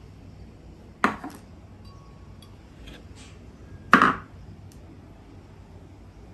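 Two sharp knocks of hard objects being handled or set down, about three seconds apart, each ringing briefly; the second is slightly louder. Faint light clicks come between them.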